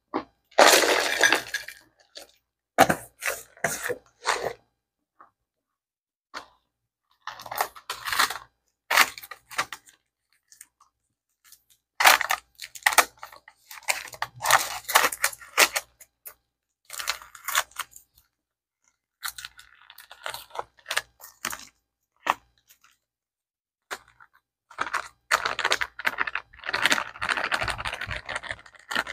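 Chunks of packed cornstarch crunching and breaking as bare hands crumble them in a ceramic dish, mixed with the crinkle of a plastic bag of tapioca starch being handled and poured. The crunching and rustling come in irregular spells with short gaps of silence between them.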